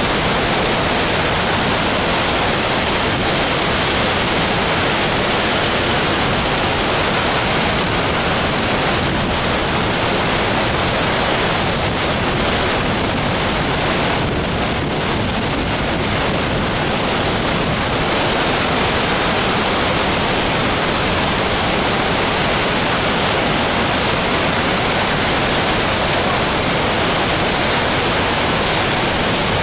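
Water from a dam's ski-jump spillway jetting out in huge plumes: a loud, steady rush that dips slightly about halfway through.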